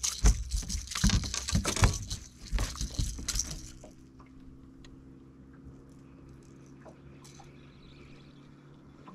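Water splattering and pattering off a landing net as a netted northern pike is swung out of the lake into the boat, with knocks and thumps of the net and fish against the deck. After about four seconds it drops to faint clicks of the fish being handled in the net over a low steady hum.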